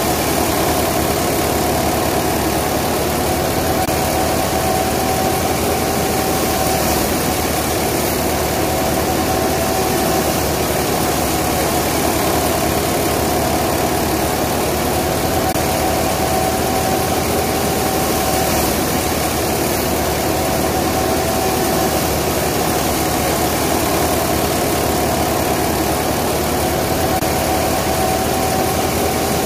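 Ford 3610 tractor's three-cylinder diesel engine running steadily at an even speed, heard close up from the driver's seat.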